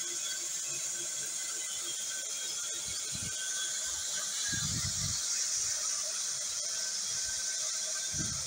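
Electric band sawmill running with its blade in a squared timber: a steady high hiss with a faint whine, and a few brief dull low thumps around three, five and eight seconds in.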